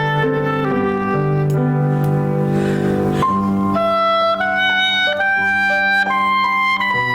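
Instrumental music: a melody instrument playing long held notes over accompaniment, the melody moving to higher notes about four seconds in.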